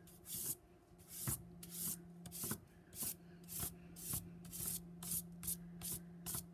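A piece of charcoal rubbed across paper laid over a cardboard collagraph block: quick back-and-forth scratchy strokes, about two to three a second, as the raised shapes of the block come through as a texture rubbing.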